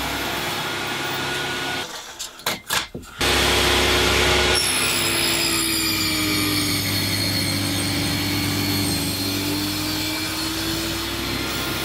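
Electric jigsaw cutting through pine timber, its motor running steadily under load. It cuts out briefly about two seconds in, then starts again louder and runs on through the cut.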